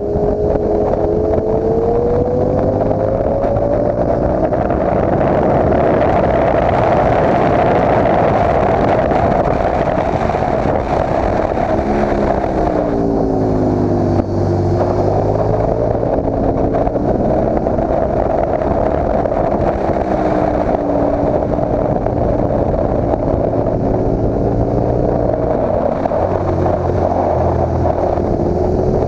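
KTM naked motorcycle's engine under load on a track lap, revs climbing and dropping several times through gear changes and corners, with wind rushing over the microphone.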